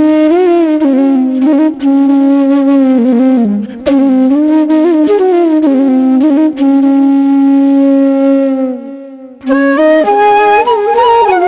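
Background music: a solo flute playing a slow melody of long held notes that bend and slide in pitch, breaking off briefly near the end before resuming.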